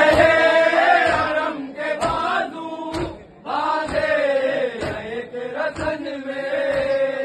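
Noha, a Shia lament, chanted by men with long held notes, with a sharp stroke about once a second that fits chest-beating (matam) keeping time.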